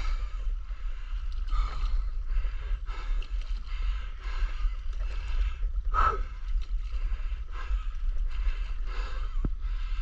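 Oars of a rowing rig on a paddleboard working in calm water, dipping and swishing in a steady stroke rhythm, over a constant low rumble.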